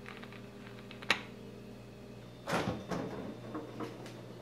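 A sharp click, then a refrigerator door pulled open about two and a half seconds in: the door seal lets go with a short whoosh, and a few light clicks follow from the door and its shelves.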